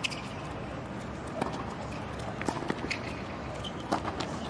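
Tennis rally: a ball struck by racquets, giving sharp pops roughly a second or so apart, over steady background noise.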